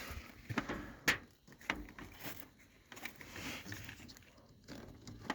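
Faint, scattered handling noises: a few sharp little clicks and rustles of hands working on small parts.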